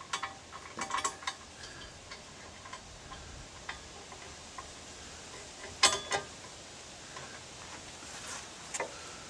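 Steel bolts and the steel rake bar being handled during assembly: scattered small metal clinks and taps, with a sharper metal clank a little before six seconds in.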